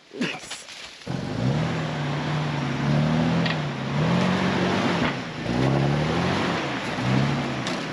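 Jeep TJ engine running and revving up and down several times, starting suddenly about a second in.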